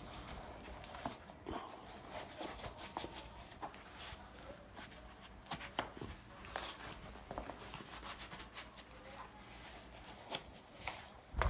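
Footsteps and scattered light knocks and rustles, irregular and fairly quiet.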